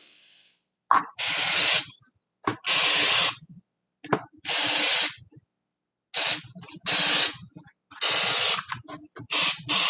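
Aerosol olive oil cooking spray can sprayed in about eight short hisses of under a second each, most starting with a click of the nozzle, with brief pauses between them.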